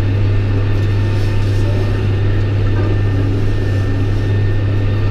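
John Deere 6110R tractor running under load with its PTO-driven disc mower-conditioner cutting hay, heard from inside the cab as a steady low drone with a strong hum.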